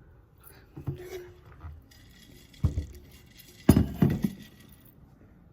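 A few knocks and clinks of small hard objects being handled and set down, the loudest pair about four seconds in.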